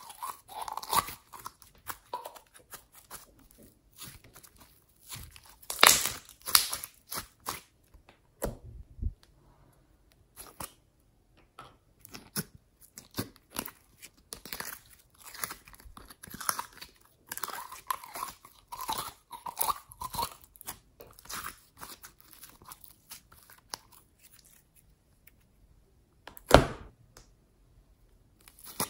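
Glossy glitter slime being squeezed and stretched by hand through clear plastic containers: irregular sticky crackling and popping. A louder cluster of pops comes about six seconds in, and a single sharp click sounds near the end.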